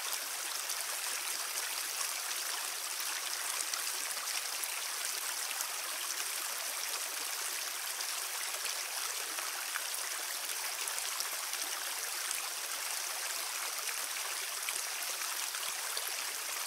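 Shallow mountain stream running over rocks: a steady rush of water, with little low rumble.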